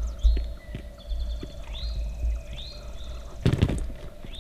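Outdoor birdsong: a bird repeats a short rising call about once a second over a low rumble, with a sudden knock about three and a half seconds in.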